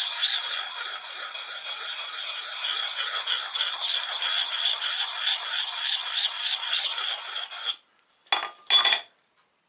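Steel scraper bevel rubbed round in circles on a 600-grit diamond sharpening card: a steady, gritty rasping that stops abruptly about three-quarters of the way through. Two short, louder strokes follow about half a second apart.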